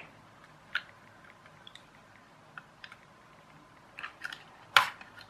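Scattered small clicks and taps of power leads and small parts being handled, with one sharper, louder click near the end.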